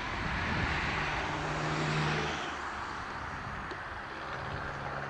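A distant engine droning steadily under a rushing hiss, with the hiss easing off about halfway through, over a low rumble.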